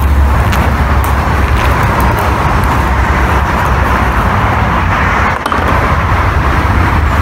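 Steady, loud outdoor rushing roar with a deep rumble, breaking off for a moment about five seconds in.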